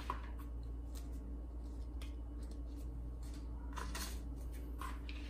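Faint rustling and light clicks of cut cardstock paper petals being handled, the clearest about four seconds in and again near the end, over a low steady hum.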